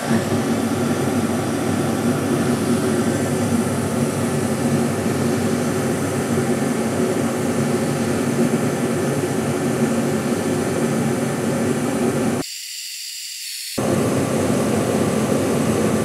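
Fireball-style forced-air heater just lit and running: the fan and burner make a steady, loud rushing noise with a low hum under it. The heater draws in a huge amount of air and burns as lean as it will go. About twelve seconds in the low part of the sound drops away for about a second, leaving a thinner hiss.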